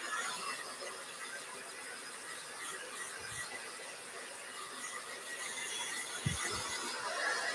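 Handheld hair dryer running steadily over a raccoon pelt, a steady rush of air with a faint high whine. A short low thump about six seconds in.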